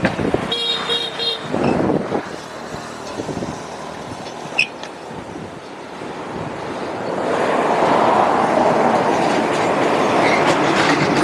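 A vehicle horn toots once for about a second near the start over steady roadside traffic noise. Later a passing vehicle's noise swells and stays loud to the end.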